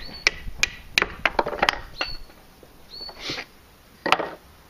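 Batoning with a bushcraft knife: a beech block strikes the knife's spine to drive the blade down through a stick. It gives a quick run of about six sharp wooden knocks in the first two seconds as the stick cracks and splits, then one more knock near the end.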